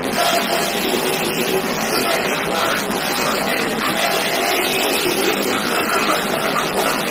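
Truck-mounted DJ speaker wall playing at full volume during a soundcheck, heard as a loud, steady, distorted wash of sound with little deep bass and no clear beat.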